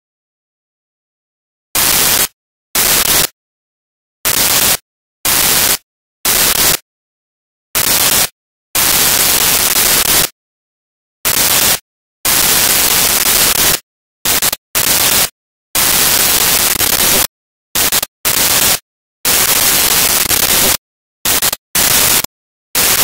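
Loud bursts of static hiss that cut in and out abruptly at irregular intervals, some a fraction of a second and some over a second long, with dead silence between them. The first two seconds are silent.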